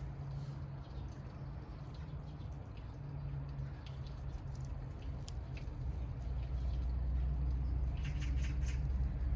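Low rumbling noise on the camera's microphone with a few faint ticks as a cat rubs against the camera's monopod. The rumble grows louder past the middle. Near the end comes a quick run of short, high chirps.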